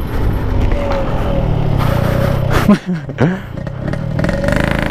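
Yamaha RX King's 135cc two-stroke single-cylinder engine running under way, its pitch dipping and rising again around the middle.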